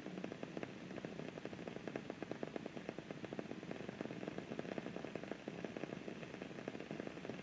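Continuous dense crackling, many fine irregular clicks a second at an even level, from a looped crackling ambience track for sleep.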